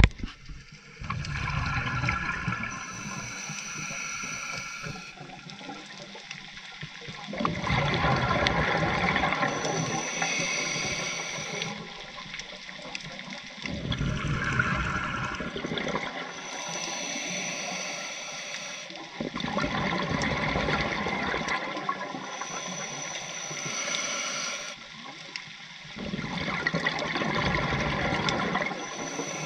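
Scuba diver breathing through a regulator underwater: a hissing inhale, then a longer rush of bubbling exhaled air, the cycle repeating about every six seconds.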